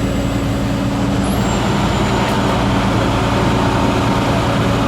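Heavy diesel engine running steadily close by, a loud even drone with a low hum.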